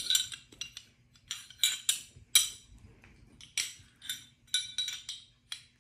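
Metal pistol parts clicking and clinking as a .40 Glock barrel is test-fitted into a P80 pistol slide: about a dozen sharp, irregular clicks, some with a short high ring.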